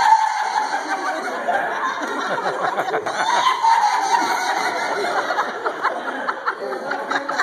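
Audience laughing and chuckling.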